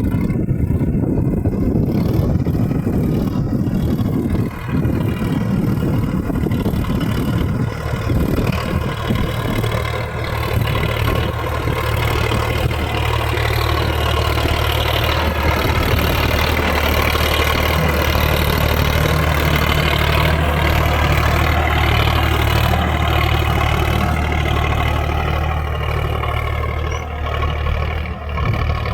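Sonalika tractor's diesel engine running steadily while pulling a reversible plough, with a rough rumble that settles into an even low hum about nine seconds in.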